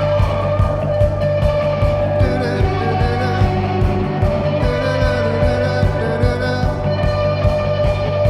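Rock band playing live, with a steady drum beat under guitars and singing.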